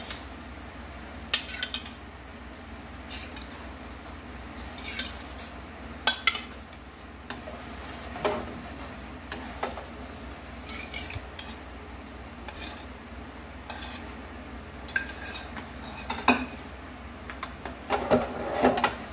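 A utensil knocking and scraping against a wok as boiled glass noodles are stirred through a soy sauce and sugar sauce, in irregular clinks and knocks over a low steady hum.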